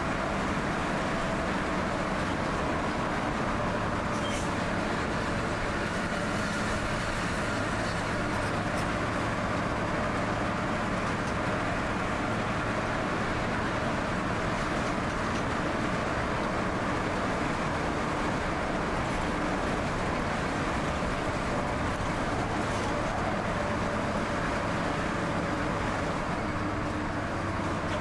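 Coach bus under way, heard from inside the cabin: a steady mix of engine hum and road noise with no change in pace.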